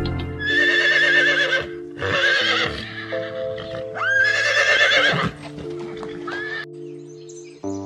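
A horse whinnying three times, each call a quavering high neigh, the last one longest, over background music with sustained chords.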